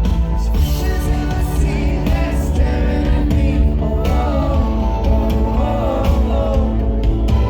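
Live rock band playing loud, with heavy bass and a lead vocal that stands out in the second half.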